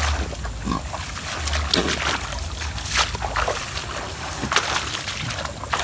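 A mesh strainer being scooped and dragged through shallow muddy swamp water among grass: irregular splashing and sloshing, with grass stems rustling. Bursts of low rumble near the start.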